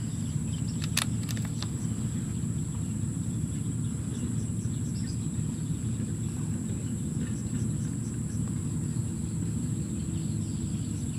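Outdoor field ambience: a steady low rumble with a continuous high-pitched insect drone over it, and a couple of faint clicks about a second in.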